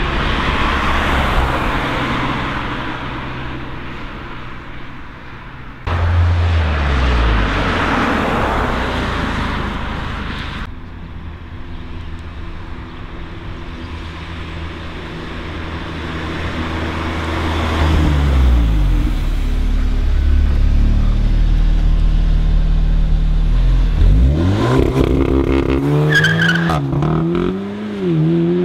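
Audi cars driving past one after another, each engine and its tyre noise swelling and fading. Near the end an engine revs up and down in rising pitch as a car accelerates away.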